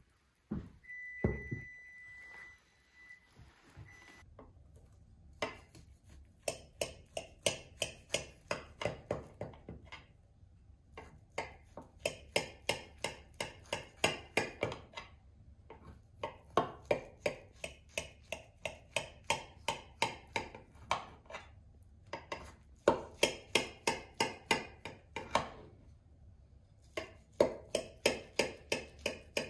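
Knife sawing through a baked apple cake in a glass baking dish, a rhythmic scraping at about two to three strokes a second, in five runs with short pauses between cuts. Near the start, a thump and a brief high ringing tone.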